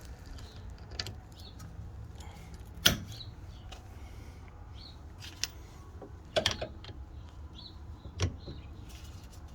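Scattered clicks and knocks of hand tools on the rear brake caliper bolts, with one sharp knock about three seconds in and a few more clicks later, over a steady low hum.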